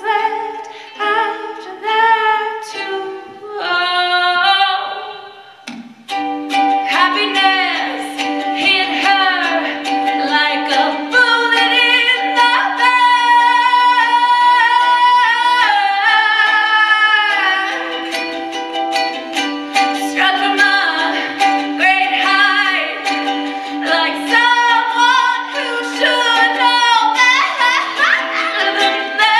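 A woman sings with a ukulele. For about the first six seconds her voice is nearly alone. Then strummed ukulele chords come in, and she sings out louder over the strumming.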